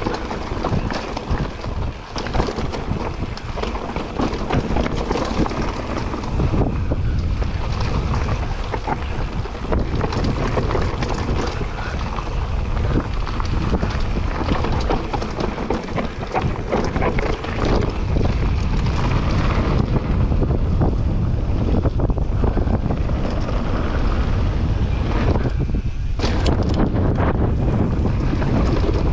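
Wind noise buffeting the microphone as a mountain bike rolls fast down a rough dirt trail, with a steady low rumble from the tyres and constant rattling and clattering of the bike over bumps.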